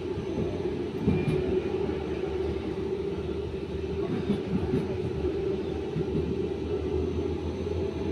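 A tram rolling past on its rails with a steady low rumble.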